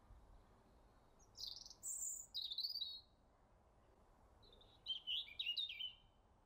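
A small songbird singing two short phrases of quick, high notes, a second or so apart.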